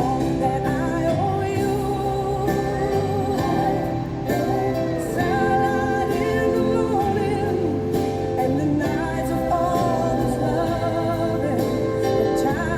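Background music: a song with a sung vocal, the voice wavering in pitch over sustained bass notes that change every second or two.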